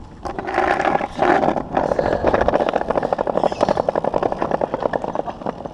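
BMX bike hopping down off a concrete ledge and rolling away across pavement, with a bump about a second in, then a fast, even clicking rattle as it coasts.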